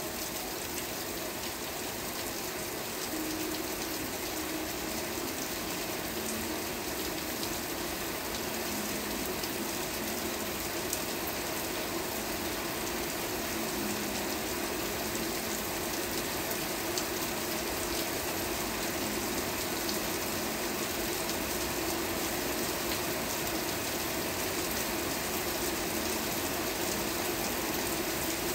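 Steady rain falling, an even unbroken hiss of many drops.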